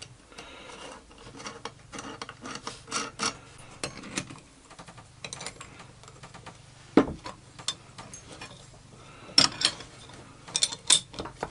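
Steel spanners clicking and clinking on a nut and washer as the nut is turned down on a bolt through a wooden gear. The ticks come irregularly, with a sharper clink about seven seconds in and several more near the end.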